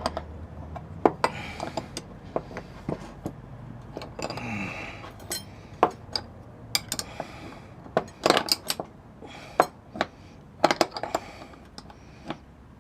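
Spanners clinking and knocking against the metal band saw's guide nuts and bolts: a string of sharp, irregular metal clinks.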